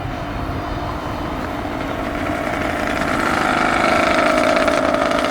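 An engine hum over a low rumble, growing steadily louder and peaking about four seconds in, as of a motor vehicle drawing near.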